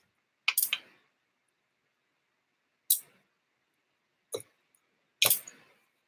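Clicks and clinks from a BMX bike's crank arm being fitted back onto its spindle: a quick cluster about half a second in, then three single clicks a second or so apart.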